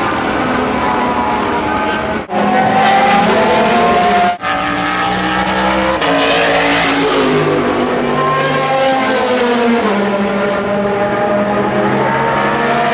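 Race car engines running on the circuit, several engine notes rising and falling in pitch. The sound cuts out briefly twice, at about two and four seconds in.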